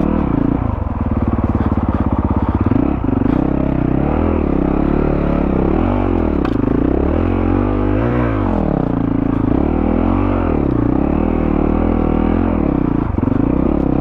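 Honda CRF450RL single-cylinder four-stroke engine running through a Yoshimura RS-4 full exhaust while the bike is ridden on a dirt trail. Its pitch rises and falls every second or two as the throttle is opened and closed.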